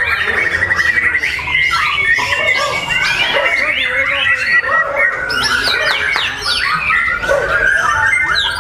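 A bird singing without a break: a fast, varied stream of chirps, rapid trills and gliding whistles, with a repeated buzzy trill in the first few seconds.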